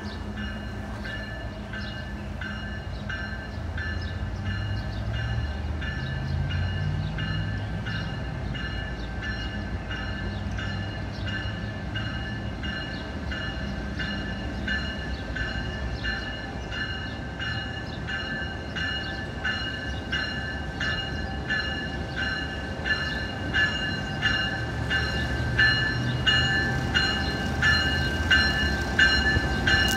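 CSX diesel freight locomotive rumbling slowly past, its bell ringing steadily at about three strokes every two seconds. The sound grows louder as the locomotive draws near.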